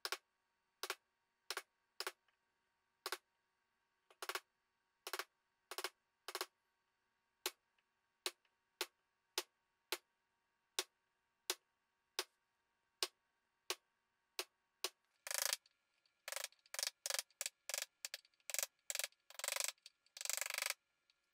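Wooden mallet striking a 1/4-inch chisel to score the outline of a spoon's scoop in 2x4 softwood: sharp, separate taps about one to two a second. About fifteen seconds in it changes to longer, faster scraping strokes of a homemade washer gouge digging out the wood of the scoop.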